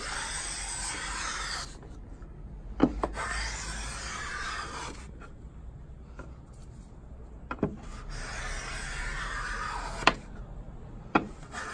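Wooden hand plane shaving a long wooden strip in three strokes of about two seconds each, with another starting at the end. A sharp knock comes before each stroke.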